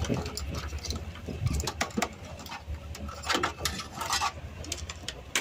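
Scattered light clicks and taps as wires and a small circuit board are handled and moved about inside an amplifier chassis.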